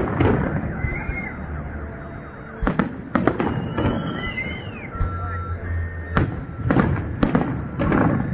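Fireworks display: aerial shells bursting in a run of sharp bangs, in clusters a few seconds apart, with quieter stretches between.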